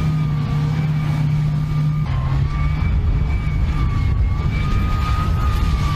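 Tank engine running: a steady heavy low rumble with a thin, slightly wavering high whine above it, edited in as a sound effect.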